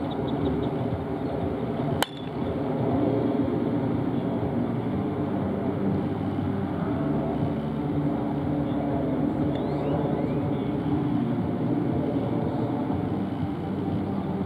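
A baseball bat strikes a ball off a batting tee once, a single sharp crack about two seconds in with a short ring after it. A steady low background rumble runs under it.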